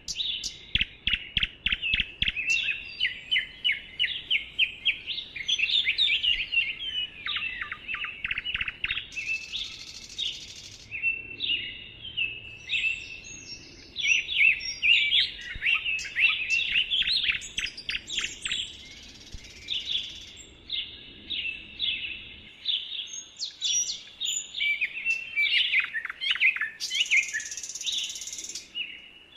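Songbirds singing and chirping, many quick, high, overlapping notes and fast downward-sweeping trills with no break. A short high hissing buzz cuts in twice, near the middle and near the end.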